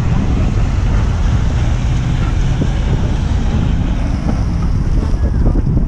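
Wind buffeting the microphone: a loud, steady low rumble with no distinct engine note.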